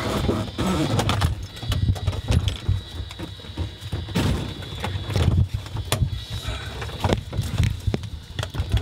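Irregular low thumps, knocks and rustling of handling and movement inside a wrecked helicopter cabin, over a faint steady high tone.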